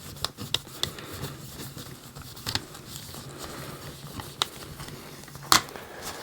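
Hard plastic toy parts being handled and fitted together, giving scattered light clicks and taps, the loudest about five and a half seconds in. A faint steady low hum lies underneath.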